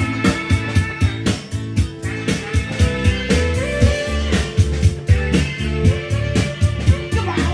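Instrumental band music: a guitar melody with bent, gliding notes over bass and drums keeping a steady beat.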